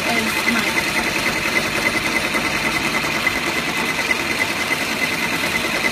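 Multi-needle embroidery machine sewing a black satin-stitch tack-down outline, a rapid, steady, rhythmic stitching chatter.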